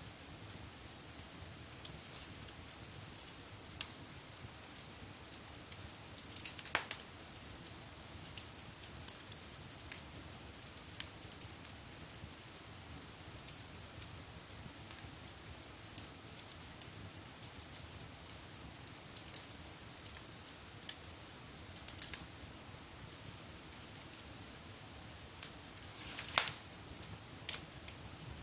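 Wood fire burning in a fireplace: irregular crackles and pops over a low steady hiss, with a louder pop about seven seconds in and the loudest one near the end.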